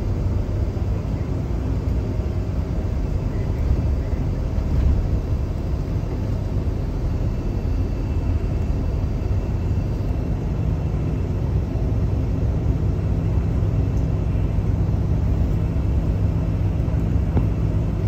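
Tour motor coach driving, heard from inside the cabin: a steady low engine and road rumble with a constant hum.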